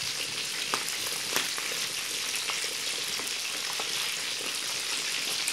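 Pieces of skin-on fish frying in hot oil in a pan: a steady sizzle, with a couple of faint ticks about a second in.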